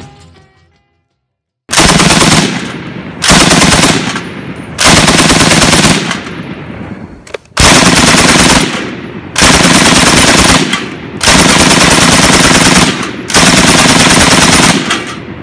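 An M60 machine gun firing seven bursts of automatic fire, each about one to two seconds long, with the report dying away between bursts. The bursts start a little under two seconds in and cut off at the end.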